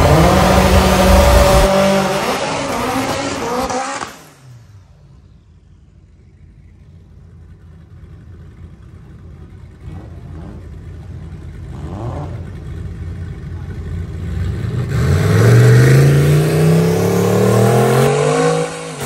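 Race cars, a turbocharged K-swapped Toyota MR2 and an LS V8 Fox-body Mustang, running at full throttle in a drag race. The engine sound drops away sharply about four seconds in, builds again from about ten seconds, and is loudest near the end, where the engine note rises in pitch under hard acceleration.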